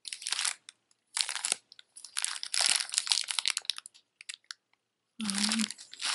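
Clear plastic bags crinkling and crackling as hands pick up and shift them, in several separate bursts with short gaps.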